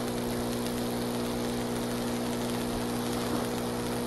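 High-voltage substation equipment humming: a steady electrical hum made of several even, unchanging pitches, over a light hiss.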